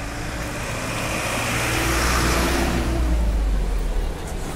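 Road traffic: a steady low engine rumble, with a motor vehicle passing close by. Its engine and tyre noise swell from about a second in and fall away near the end.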